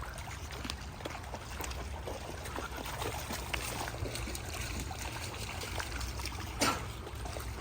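Shallow, low-running river trickling over stones, with a steady low rumble under it and a short knock or splash near the end.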